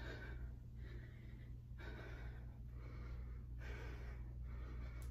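A woman breathing hard and rhythmically in and out, about one breath a second, from the exertion of a set of lunges. A steady low hum runs underneath.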